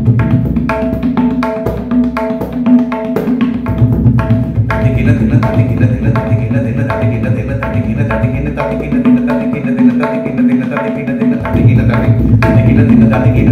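Tabla played in a fast, even stream of strokes: a teentaal rela on dhati-ghene bols, the right-hand dayan ringing over bass strokes on the left-hand bayan.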